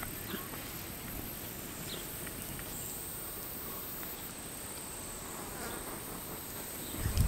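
Steady high-pitched insect chorus, a continuous shrill drone, with a couple of faint clicks.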